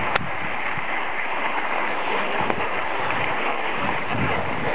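Steady rushing wind noise buffeting a hand-held camera's microphone while skiing downhill. There is a single short click just after the start.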